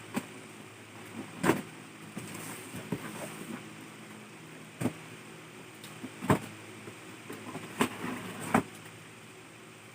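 Cardboard box being opened by hand: scrapes and rustles of cardboard with about five sharp knocks, over a steady low hum.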